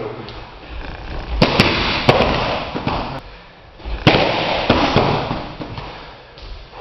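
Kicks and strikes landing on handheld focus mitts: several sharp smacks, some in quick pairs, with a quieter gap in the middle.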